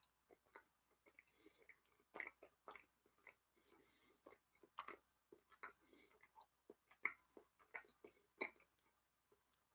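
Faint chewing of a mouthful of cheese: irregular wet mouth clicks and smacks, a few louder than the rest.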